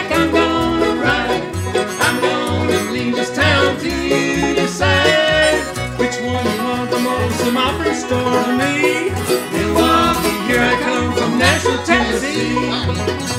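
Bluegrass band playing an instrumental passage live: banjo, mandolin, fiddle and guitar over an upright bass that changes note about every half second.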